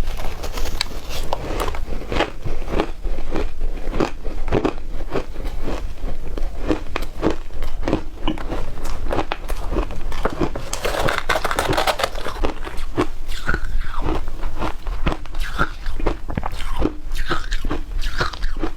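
A person biting and chewing shaved ice. There are repeated sharp crunches, about two a second, with a longer grinding crunch about eleven seconds in.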